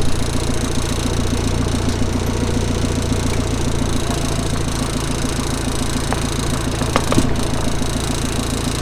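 Diesel engine of a compact construction machine running steadily at a fast idle, with a few short knocks about six to seven seconds in.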